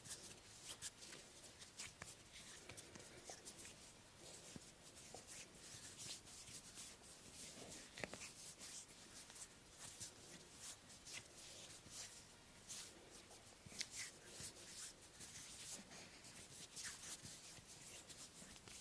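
Hands rubbing and pressing on bare skin during a massage: a faint, steady rustle with many soft clicks scattered through it.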